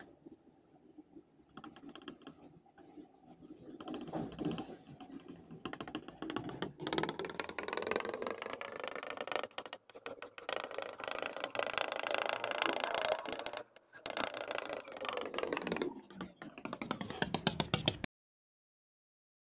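Metal palette knife scraping and squelching through thick paint as it mixes two colours, a dense run of fine clicks and scrapes that cuts off abruptly near the end.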